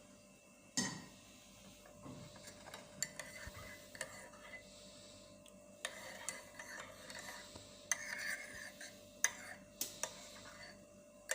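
A spoon stirring hot water into lemon and ground cloves in a glass, giving irregular light clinks and scrapes against the glass, the sharpest about a second in.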